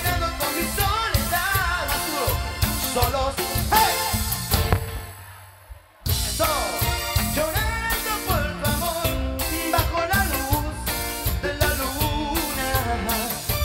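Live grupera band playing, with electric guitar, bass and drums, and a man singing lead. The music fades away about four and a half seconds in and comes back abruptly at full level about a second and a half later.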